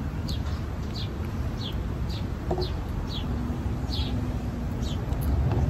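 A bird chirping over and over, short high notes that fall in pitch, about two a second, over a steady low rumble.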